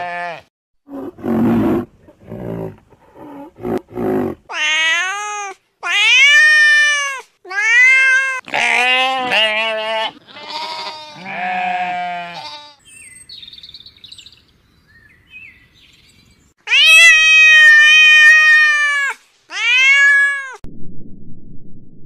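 Sheep and lambs bleating: a string of high, wavering bleats, each falling in pitch, with lower, rougher calls in the first few seconds and one long held bleat near the end.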